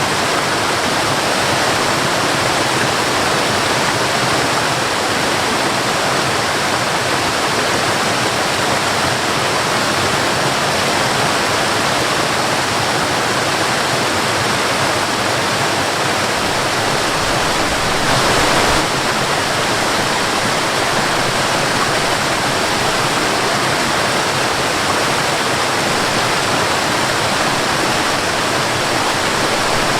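Waterfall: a steady, dense rush of falling water, swelling slightly for a moment a little past halfway.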